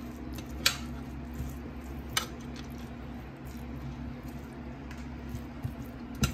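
Fried rice being stirred and folded with a spatula in a stainless steel skillet, with sharp clinks of the spatula against the pan about a second in, again after two seconds and near the end, over a steady low hum.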